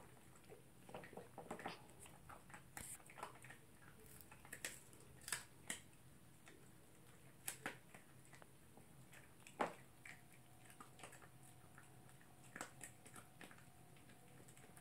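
Toy poodle chewing a dental chew gum, faint irregular crunches and clicks with a few sharper bites.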